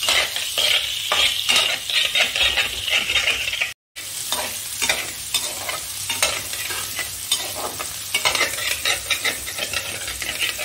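Metal spoon scraping and stirring small boiled potatoes and capsicum around a steel kadai, repeated scrapes over a steady sizzle of hot oil as the potatoes shallow-fry toward crispness. The sound cuts out for a split second about four seconds in.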